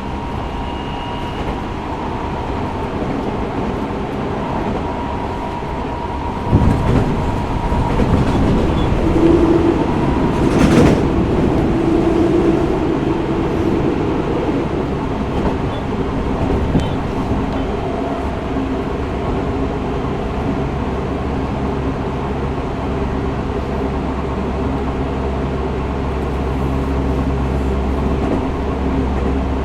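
A Tokyo Metro 05 series electric train running, heard from inside the car: the Mitsubishi IGBT inverter and traction motors hum with steady tones over wheel and rail noise, with a sudden knock about six and a half seconds in and a steady low hum in the later part.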